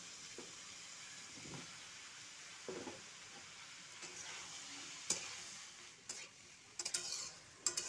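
Vegetables sizzling as they stir-fry in oil in a steel kadai, a steady faint hiss. In the second half a spatula scrapes and clicks against the pan several times as the vegetables and mushrooms are stirred.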